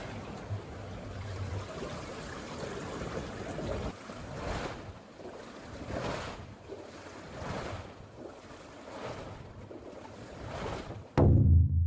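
Seawater surging and sloshing in the gaps between concrete tetrapod breakwater blocks, swelling about every one and a half seconds. Near the end it cuts off suddenly into a loud, steady low hum, an edited-in sound effect.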